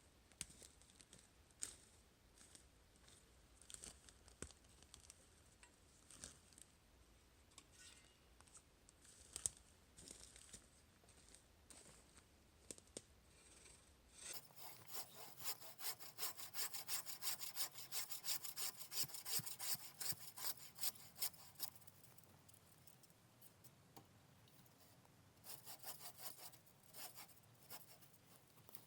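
Handsaw cutting through a spruce log: a run of quick, regular back-and-forth strokes starting about halfway in, a pause of a few seconds, then a short second run near the end. Before the sawing there are only scattered light knocks and scrapes.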